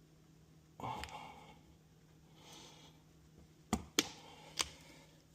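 A breathy exhale about a second in, then three sharp clicks near the end as a new piston seal is worked onto a hydraulic cylinder piston.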